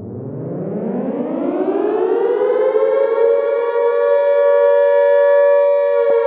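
A civil-defence-style siren winding up: one tone that rises steadily in pitch for about three seconds, then holds steady.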